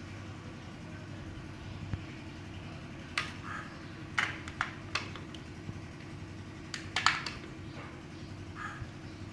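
Steady low hum with a few sharp clicks and taps through the middle, the loudest a double click about seven seconds in.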